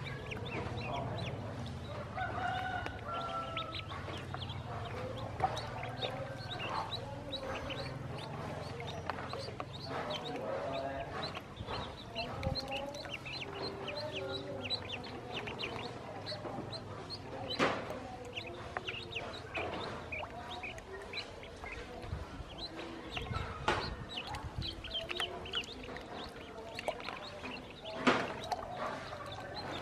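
A group of ducklings peeping continuously in short, high, rapid calls, with lower calls mixed in. There are a few sharp, sudden sounds, the loudest near the end.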